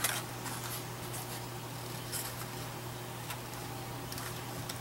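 Scissors snipping through paper: a few scattered short cuts, the clearest one right at the start and several more near the end, over a steady low hum.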